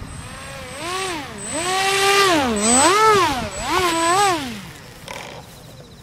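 Small electric RC plane motor and propeller whining, its pitch swinging up and down four times as the throttle is worked in a nose-up hover close to the ground, then winding down about five seconds in.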